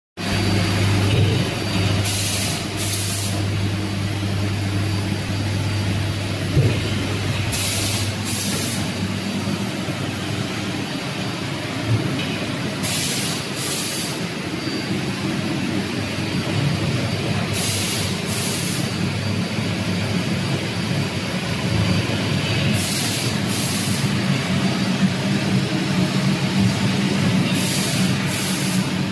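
Automatic L-bar sealing and shrink-wrapping machine with its shrink tunnel running: a steady fan and motor hum, with a pair of short air hisses about every five seconds as the sealer cycles. The low part of the hum drops about eight seconds in.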